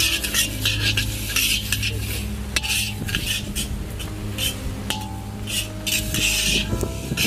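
Metal spatula scraping and stirring a heap of sesame seeds frying in a large wok. It makes rasping strokes about twice a second, with a brief lull in the middle.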